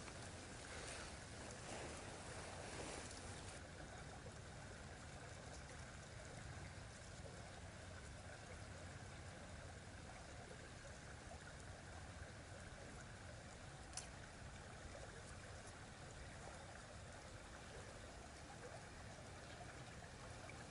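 Near silence: a faint, steady rushing hiss, with faint rustling in the first few seconds and a single sharp click about fourteen seconds in.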